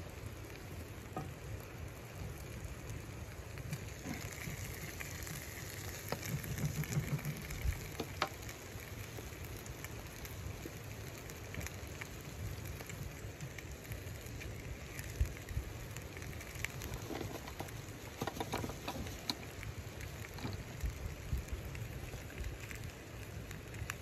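Chicken pieces sizzling in a frying pan on a wood stove: a steady hiss with scattered pops and crackles of spitting fat, over a low rumble.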